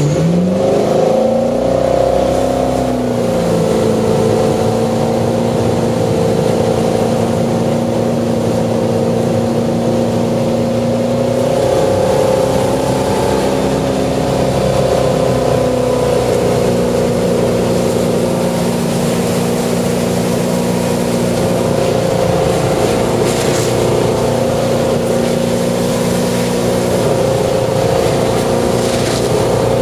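Ski boat's engine accelerating hard to pull a water skier up out of the water, its pitch rising over the first few seconds, then holding a steady towing speed.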